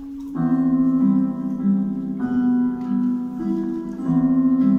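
Instrumental stage music playing for a dance, with long held chords that change about every two seconds; the first chord comes in about half a second in.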